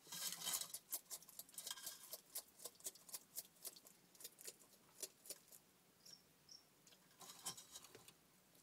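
Bearded dragon crunching a cockroach: a run of sharp, irregular crackles and clicks, thickest in the first second and again near the end.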